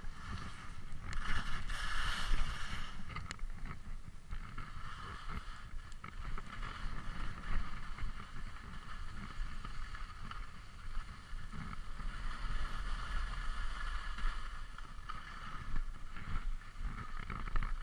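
Wind buffeting a helmet or body-mounted camera's microphone during a downhill ski run, with the skis hissing and scraping over packed snow, swelling and fading as the skier moves.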